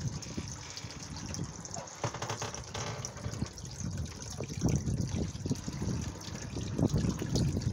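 Small garden fountain: water pouring from a pipe spout into a basin, trickling and splashing unevenly, louder in the second half.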